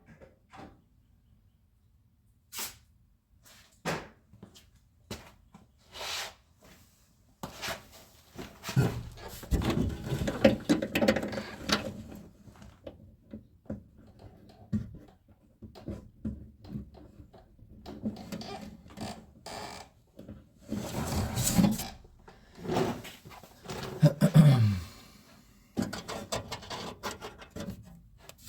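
Scattered clicks, knocks and rubbing from hands and tools working on a car door's handle and lock hardware, with a few louder, busier stretches of handling noise.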